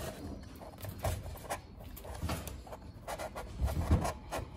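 Glass being pressed by hand into a VK Commodore's plastic door-mirror housing: scattered light plastic knocks and rubbing as it is pushed to clip into place, with no clear click yet.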